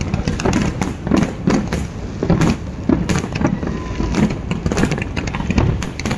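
Fireworks display bursting: an irregular run of bangs and crackles, several a second, over a continuous low rumble.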